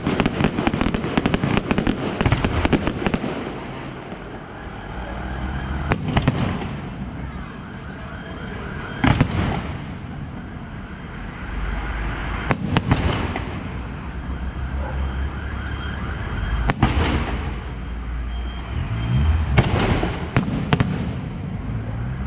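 Fireworks going off: a dense run of rapid crackling bangs for the first three seconds, then single loud bangs every three to four seconds with quieter crackle in between.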